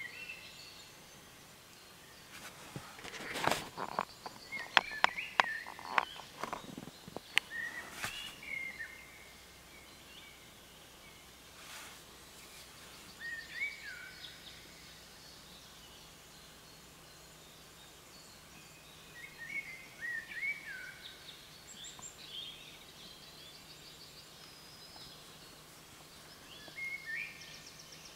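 Songbirds singing in woodland at dusk: short, repeated, sweeping phrases every few seconds. A run of sharp clicks and knocks sounds between about three and eight seconds in, louder than the birds.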